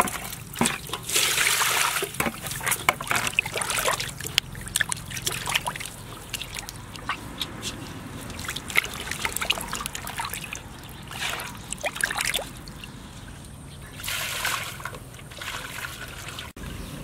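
Water splashing and trickling in an aluminium basin as hands rinse and turn chunks of cut fish, in irregular splashes with a few louder spells.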